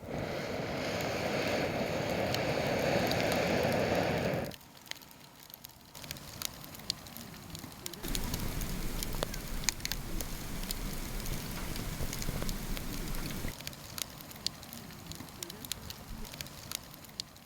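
Wood campfire crackling, with many sharp pops scattered through it. For the first few seconds a louder, steady rushing noise covers it, then it cuts off suddenly.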